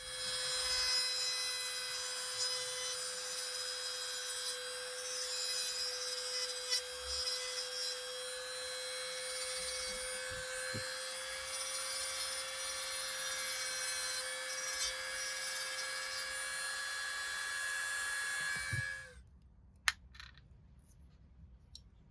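Small high-speed electric rotary tool running at a steady speed with a constant whine, its bit grinding against a small part, then switched off abruptly near the end, followed by a single sharp click.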